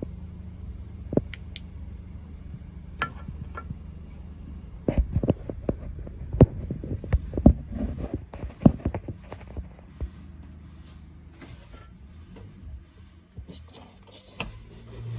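A low steady hum under a series of sharp clicks and knocks. The knocks come thickest between about five and ten seconds in.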